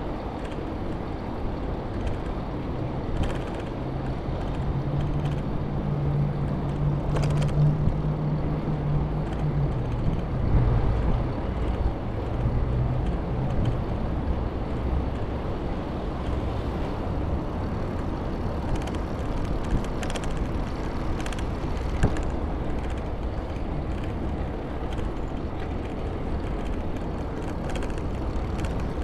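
Bicycle rolling along paved promenade, with steady wind and tyre noise on the action camera and a few sharp clicks. A low engine drone swells from about four seconds in and fades away after about ten.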